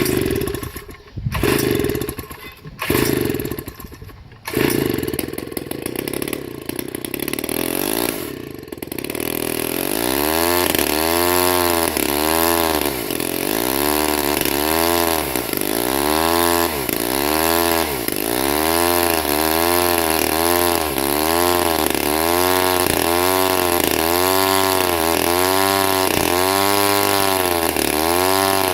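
Bolens CS 3500 two-stroke chainsaw catching in a few short bursts and then running. After about ten seconds its engine speed rises and falls about once a second. It is running on primer fuel, with a carburettor the owner says needs a kit or rebuild.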